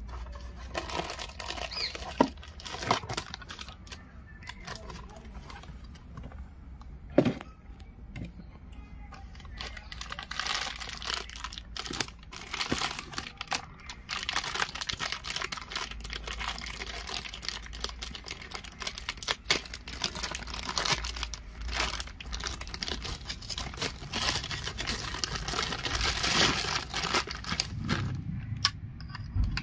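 Clear plastic packaging bags crinkling and rustling as toy vehicles are handled and unwrapped, with a few sharp knocks.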